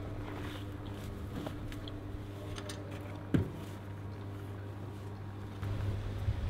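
Hands rummaging through the plants and soil of a steel street planter: faint rustling over a steady low hum, with one sharp knock about three and a half seconds in.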